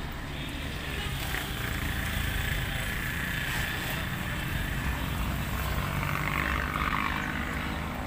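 Steady rumble of vehicle engines and road traffic, with one passing vehicle growing louder about six seconds in.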